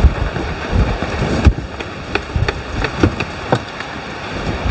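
Heavy rain pouring down, heard from inside a car with a door open, with a few sharp knocks and taps around the door.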